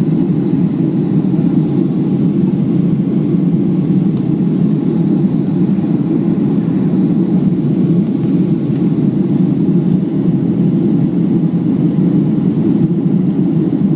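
Steady, loud roar of a Southwest Boeing 737 in flight, heard from inside the passenger cabin: engine and airflow noise with a deep, even rumble and no change in pitch.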